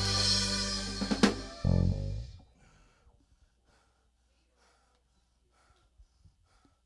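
Church band music: sustained chords with drums and cymbals, closing on a cymbal crash and a last hit, and stopping about two seconds in.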